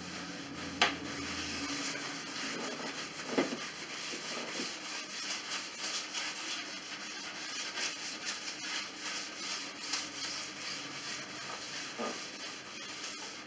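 Cloth rags wiping and scrubbing stain along rough wooden boards: a steady scratchy rubbing made of many short, repeated strokes, with a couple of light knocks.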